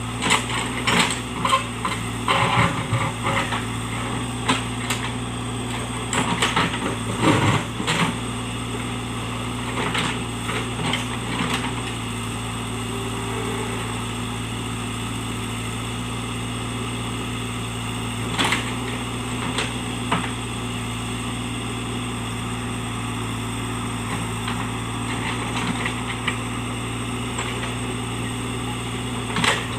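JCB backhoe loader's diesel engine running steadily under work, with scattered knocks and cracks from the machine working through the first dozen seconds, and one more about eighteen seconds in.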